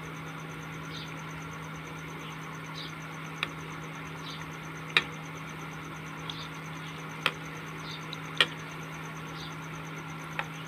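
Wheat-flour batter fritters deep-frying in hot oil, a steady sizzle over the low hum of an induction cooktop. A metal slotted spoon clinks against the pan about five times as it turns the fritters.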